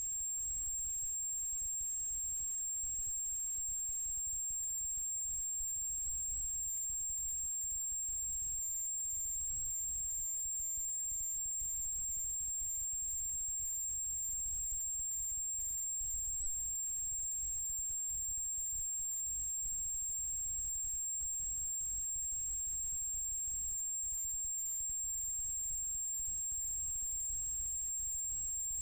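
A faint, steady high-pitched electronic whine over a low rumble, with no crowd, ball or voice sounds: the gym sound appears to have been cut off, leaving only the recording's own noise.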